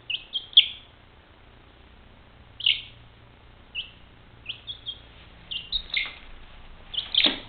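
Young chicken chick peeping: short, high chirps that drop in pitch, coming singly and in small groups, with the loudest about half a second in and a quick run of them near the end.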